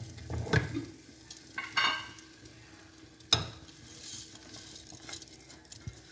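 Raw, drained rice frying in hot coconut oil and ghee in a heavy pot, sizzling lightly as a wooden spatula stirs and scrapes through the grains. A single sharp knock sounds about three seconds in.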